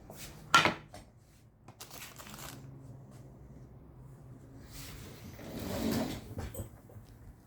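Handling noises: a sharp click about half a second in, then scattered light rustles and taps, with a longer rustle a little after the middle.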